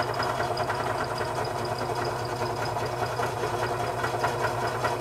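Benchtop drill press motor running with the spindle turning freely, a steady hum with a high whine over it, while the bit is lifted out of the bolt being drilled out.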